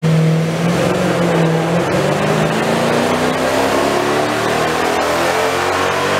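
2007 Jaguar XK's 4.2-litre V8, breathing through a K&N intake and Magnaflow exhaust, running hard under load on a chassis dyno; its pitch holds steady for about two seconds, then climbs gradually as the revs rise.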